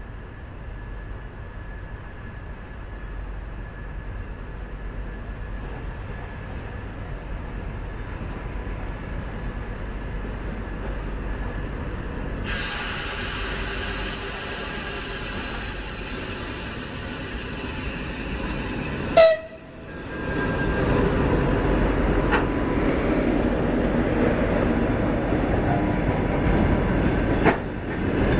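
TEP70BS diesel-electric locomotive hauling a passenger train, its engine rumble growing louder as it approaches and passes, with one short, loud horn toot about two-thirds of the way in. Passenger coaches then roll past with wheel and rail noise.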